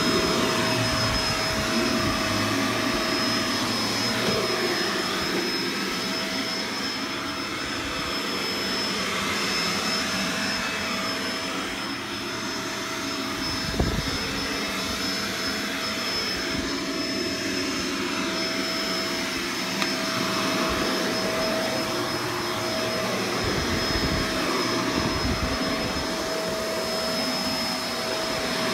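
Vacuum cleaner running steadily over carpet, a steady whine over its airflow noise, rising and falling a little as it is pushed back and forth. One sharp knock about fourteen seconds in.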